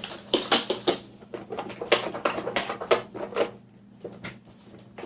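A dry wipe rubbed quickly back and forth over the plastic main-brush housing of a robot vacuum, making a run of short, irregular scratchy strokes that fade after about three and a half seconds.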